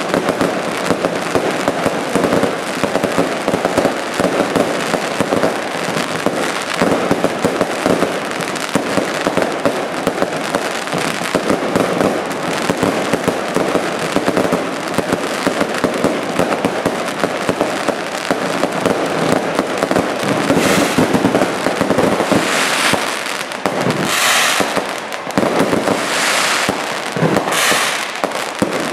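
Aerial firework shells and crackling stars going off in a rapid, unbroken barrage of bangs and pops. Past the two-thirds mark, several short hissing bursts stand out among the bangs.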